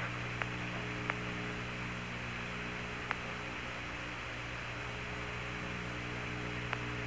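Open air-to-ground radio channel between transmissions from the Apollo 15 lunar surface: a steady hum under even hiss, with a few faint clicks.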